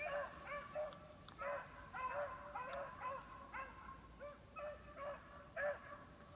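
A pack of beagles baying while running a rabbit's scent trail: a quick series of short yelping barks, two or three a second and sometimes overlapping, that stop near the end.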